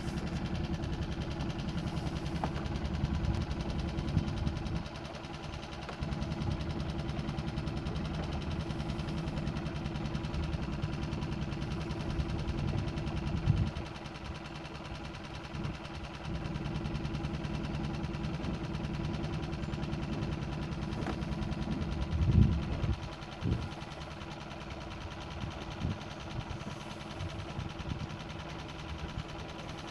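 Small boat's motor running steadily under way, a fast even putter, with a few louder thumps about two-thirds of the way through.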